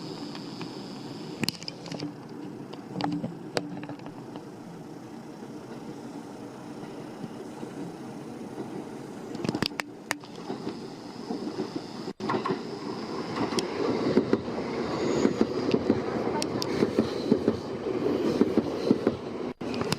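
A JR Kyushu 787 series limited express electric train approaching and running past, its rumble of wheels on rails building louder through the second half. Before that, a steady hum with a few scattered clicks.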